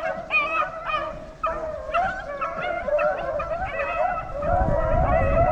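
A pack of beagles baying as they run a rabbit, several hound voices overlapping in a wavering chorus. A low rumble comes up near the end.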